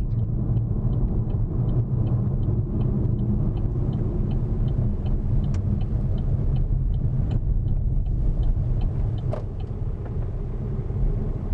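Car running along the road with a steady low rumble, and a light regular ticking about two or three times a second that stops near the end.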